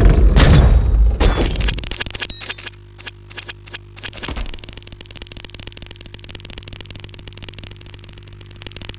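Designed film sound effects: the tail of a loud crash dies away over the first two seconds, followed by scattered sharp clicks and knocks of falling debris, then a low steady hum with faint quick ticking.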